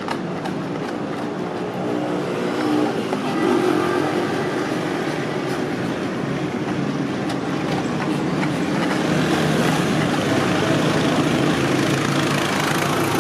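Steady engine noise of motor vehicles running.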